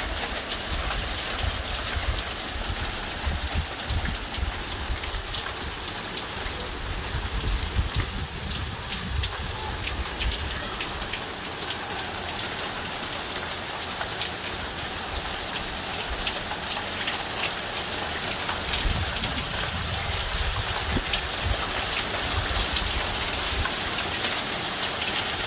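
Hail and rain pelting down in a dense, steady hiss, with many sharp ticks of hailstones striking hard surfaces and a fluctuating low rumble underneath.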